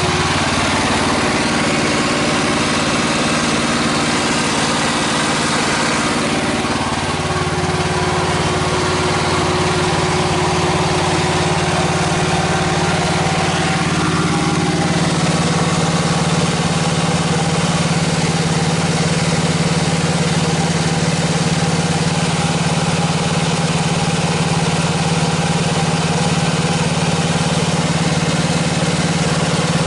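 Typhon Terror One mini excavator's engine running steadily, with a brief sag in pitch about seven seconds in.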